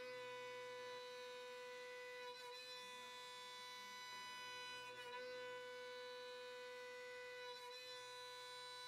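Roland MDX-50 benchtop milling machine's spindle whining steadily as its end mill cuts Corian solid surface material. The whine is one steady high pitch with several overtones, wavering slightly a few times.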